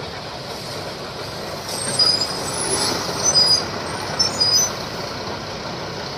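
Heavy quarry machinery running steadily, with a cluster of short high-pitched squeals from about two seconds in to past four and a half seconds.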